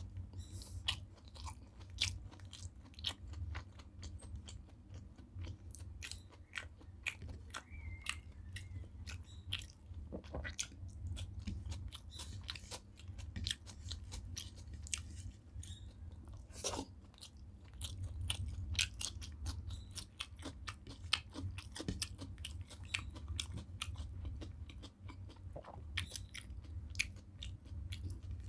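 Close-miked chewing of rice and fried okra, with many sharp, wet mouth clicks and smacks throughout over a steady low hum.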